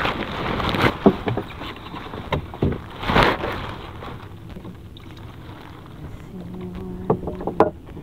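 Plastic sheeting rustling and knocking against the microphone, with several sharp knocks in the first few seconds. The noise eases about halfway through, and a steady low hum with a higher tone above it comes in near the end.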